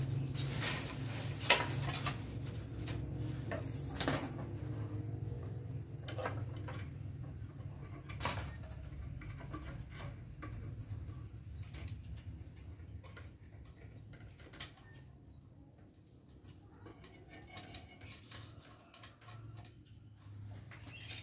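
Steel wire clicking and rattling as it is snipped with cutters and handled. The clicks come thick in the first several seconds and thin out later, over a low steady hum.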